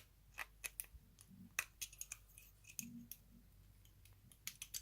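Faint, irregular metallic clicks of a lock pick working the pin tumblers in a Rolson 60mm padlock's brass cylinder during single pin picking, under tension from the tension wrench.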